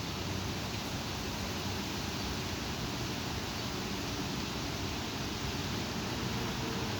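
Strong thunderstorm wind blowing: a steady rushing noise.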